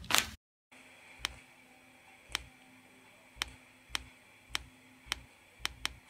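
A short loud burst of noise at the very start. Then a faint hiss with eight sharp clicks, irregularly spaced about half a second to a second apart, two of them close together near the end.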